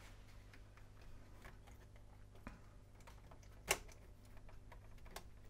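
Scattered faint clicks and taps of hands handling the cassette tape deck mechanism as it is worked loose from the record player's chassis, with one sharper click a little under four seconds in.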